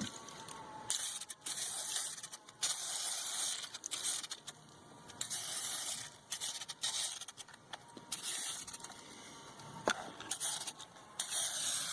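Aerosol can of Boeshield corrosion protectant spraying in several short hissing bursts, with a pause of a few seconds before a last burst near the end.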